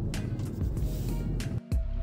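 Background music. It breaks off briefly near the end and picks up again with sharp, struck notes.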